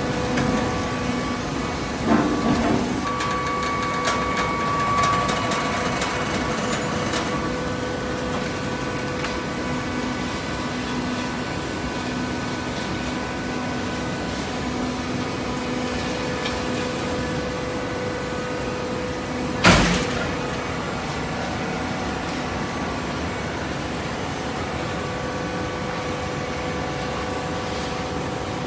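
Horizontal cardboard baler running: a steady machine hum with several fixed tones throughout, a short clank about two seconds in, and one loud sharp bang about twenty seconds in.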